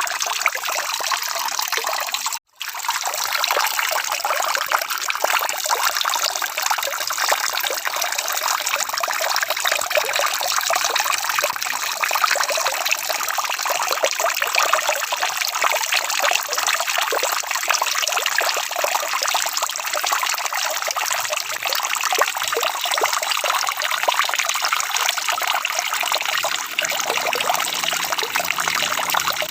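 Steady rain: an even hiss of many drops with no rhythm. The sound drops out for a split second about two and a half seconds in.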